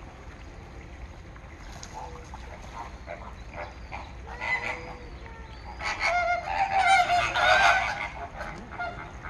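A flock of greater flamingos calling: scattered single calls at first, then many birds calling together loudly for about two seconds, starting about six seconds in.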